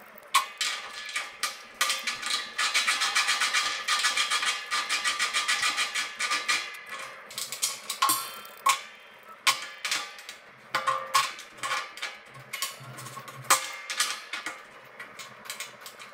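Metal clicks, knocks and scrapes as a pipe wrench and threaded steel fittings are worked on the top of a steel fuel oil tank, with a stretch of rapid rattling clicks a few seconds in.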